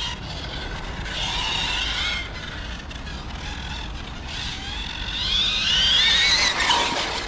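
Hobao Hyper 10SC short-course truck's brushless motor and drivetrain whining as it drives, rising in pitch as it accelerates, with the loudest, longest rising whine a little past the middle. The transmission is noisy.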